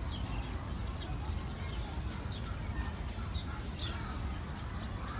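Small birds chirping: many short, high notes, each sliding downward, repeated irregularly over a steady low rumble.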